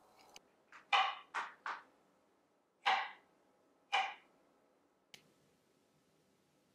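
Chef's knife chopping avocado on a cutting board: about six sharp knocks with a brief ringing tone, four in quick succession, then two more about a second apart, and a faint click near the end.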